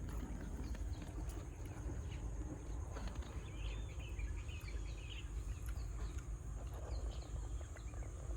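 Birds chirping over a steady high-pitched insect drone, with a constant low rumble beneath.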